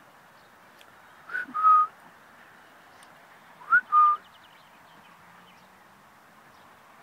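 A person whistling to a dog twice, each call a short upward note followed by a held steady note, over a faint steady hiss.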